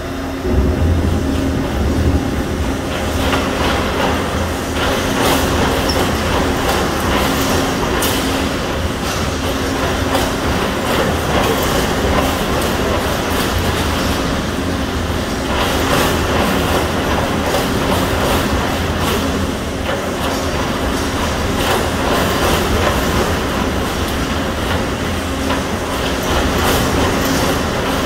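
Shake table driving a full-scale two-story steel moment frame through simulated earthquake shaking: a loud, steady rumble starting about half a second in, with continual rattling and knocking from the shaken frame and its suspended ceiling and partitions, over a steady hum.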